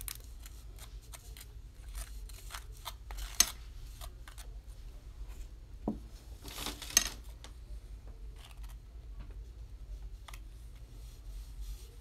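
A butter knife scraping and spreading seed butter over an ice cream cone: a run of short, soft scrapes and clicks, with two sharp clicks about three and a half and seven seconds in, around when the knife goes back into the ceramic bowl for more.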